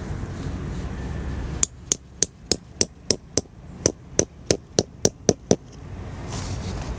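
Hammering tent stakes: about fourteen sharp strikes with a metallic ring, roughly three a second, with a short pause midway.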